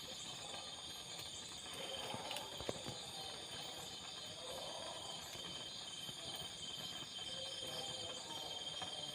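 Night chorus of insects, crickets among them, trilling steadily at several high pitches, with one sharp click about a third of the way through.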